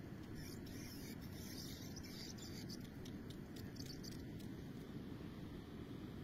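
Steady low rumble of wind on the microphone, with a run of faint, quick, high clicks and ticks from about half a second to four seconds in.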